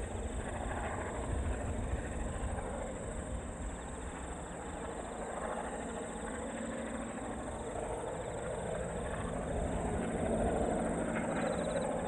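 Ballast train of loaded hopper wagons rolling past at a distance: a steady rumble of wheels on the rails, with the low drone of its diesel locomotives. The sound swells a little near the end as the trailing locomotives pass.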